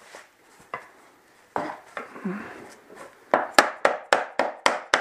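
Snap-together laminate floor plank being knocked into its locking joint: a few scattered knocks and some scraping, then a quick even run of hammer blows, about four a second, seating the plank.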